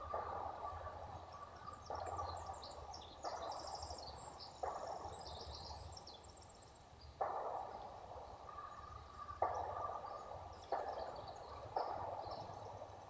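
Distant gunshots, about eight at irregular intervals, each one echoing away. Small birds chirp between the shots.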